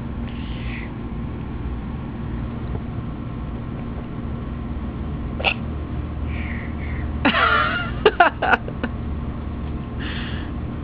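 A baby's short non-speech vocal sounds, with one brief wavering cry about seven seconds in followed by a few sharp clicks, over a steady low background hum.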